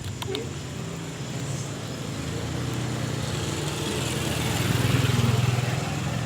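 A motor vehicle's engine passing by, growing louder to a peak about five seconds in and then easing off.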